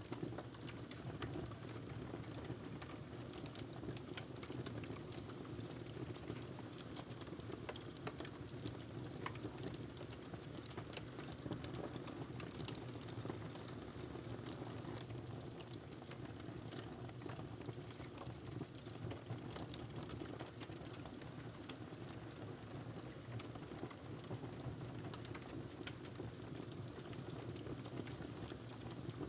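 Wood fire crackling in a fireplace: frequent small snaps and pops over a steady low rush.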